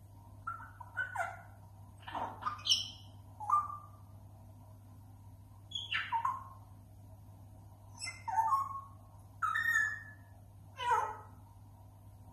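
African grey parrot calling in short whistles and squawks, about seven bursts spread out with pauses between them, many sliding down in pitch.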